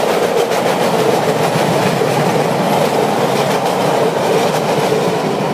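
Chicago 'L' train moving along the elevated tracks close by: a loud steady rumble with a rapid clatter of wheels over the rail joints.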